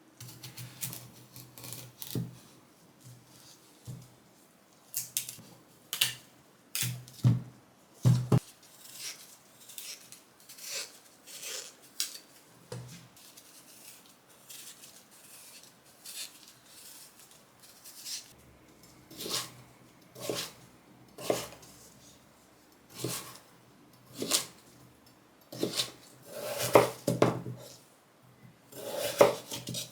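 Kitchen utensils at work on a counter: irregular sharp clicks and knocks, a second or less apart, growing busier near the end.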